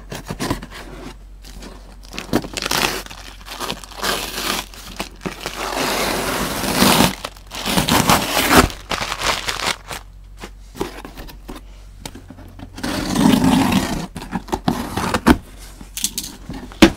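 Cardboard shipping box being opened by hand: packing tape slit and torn, paper packing crinkling, and cardboard flaps scraping open, in uneven rustling stretches with a sharp knock near the end.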